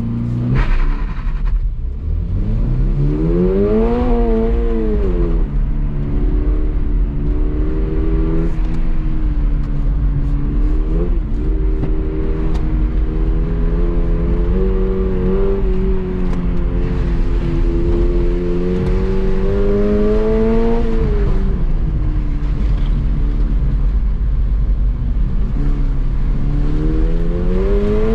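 Stock Toyota GR86's 2.4-litre flat-four engine, heard from inside the cabin, being driven hard. The revs climb and fall sharply about four seconds in, hold fairly steady, rise gradually to a peak about twenty seconds in, drop, and climb again near the end, over a steady rumble of tyres on wet pavement.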